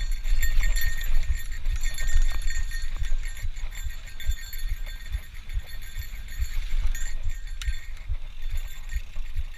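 Bicycle riding along a trail: wind rumbling on the action camera's microphone, with irregular bumps and light rattles and clinks from the bike.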